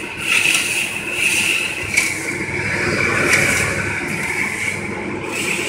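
Caramel popcorn coating machine and its cooling bed running: a steady mechanical noise with a constant high whine, and a sharp knock about two seconds in.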